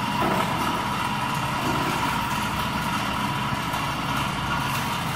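Steady mechanical hum, an unchanging drone with a faint steady high tone over it.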